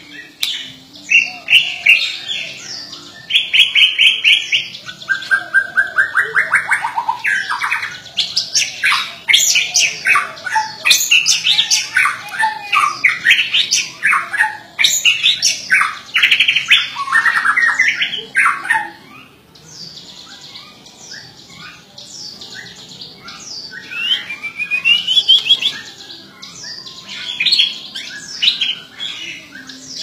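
Caged white-rumped shama (murai batu) in full, vigorous song (gacor): a long run of varied whistled phrases, glides and quick repeated-note trills. It sings loudest through the first two-thirds, goes softer for a few seconds, then picks up again near the end.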